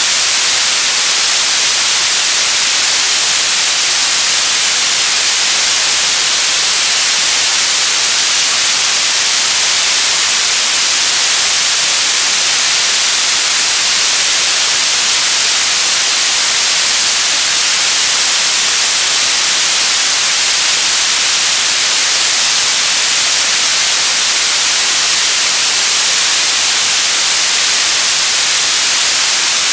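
Radio static: a steady, loud hiss, brightest in the high end, with no tones, voices or breaks.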